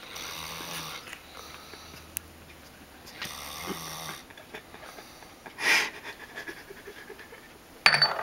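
A man snoring in his sleep: two long snores about three seconds apart, then a shorter, louder breath about two-thirds of the way through. Near the end a quick run of sharp clinks and clicks begins.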